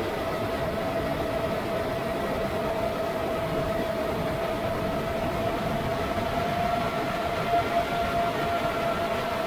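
Brushless motors and propellers of a 7-inch FPV quadcopter running in flight: a steady whine holding nearly one pitch over a rushing noise of wind and prop wash.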